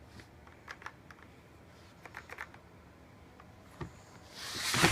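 Hard plastic equipment case being handled: a few light clicks and knocks, then a loud rising rush of rubbing and shuffling near the end as the case is moved.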